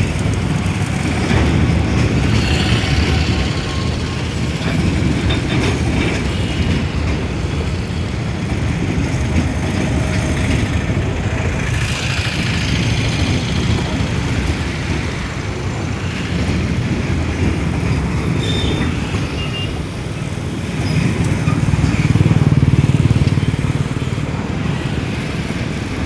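Steady low rumble of a moving freight train loaded with excavators, swelling louder for a few seconds about 21 seconds in.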